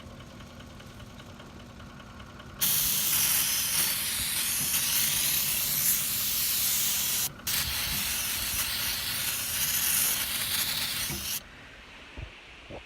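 Aerosol can of ether starting fluid hissing as it is sprayed to help start a combine that won't fire in the cold: one long spray of about five seconds, a brief break, then another of about four seconds.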